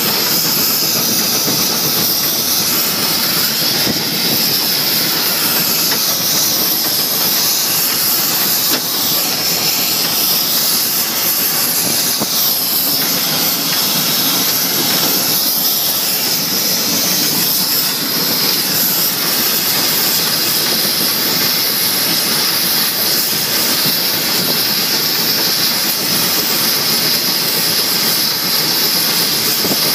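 Steam locomotive hissing steadily, heard from inside its cab: a loud, even hiss of escaping steam over a constant mechanical rumble.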